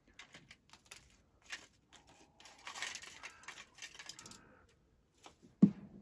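A raven picking and tearing at a hanging wicker basket: irregular scratchy crackling and clicks, densest in the middle, with a sharper knock near the end.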